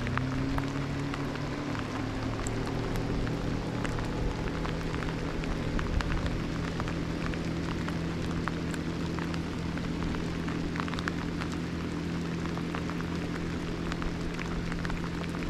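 Boat outboard motor running under way, its pitch rising in the first second as it speeds up and then holding steady. Rain patters on the water and the boat throughout.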